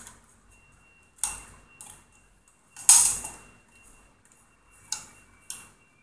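Aluminium flat bars and a pivot bolt being handled and knocked together while the arms of a swinging arm are fitted, giving a handful of sharp clicks and clacks, the loudest about three seconds in.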